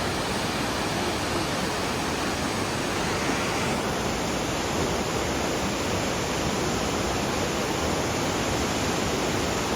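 Waterfall rushing: a loud, steady roar of falling water with no break.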